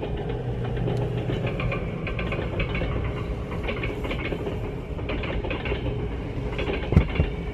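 Blue passenger coaches of an electric train rolling past, their wheels clattering in an uneven rhythm of clicks over a low steady rumble. Two sharp thumps come near the end.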